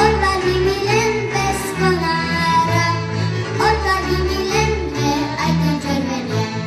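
A young girl singing a Slovak folk song into a microphone, backed by a live folk band with accordion and fiddle.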